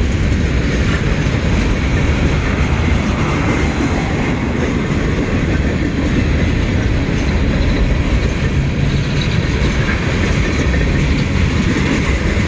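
Freight train cars rolling slowly past, with a steady rumble of wheels on the rails and some clickety-clack from the rail joints.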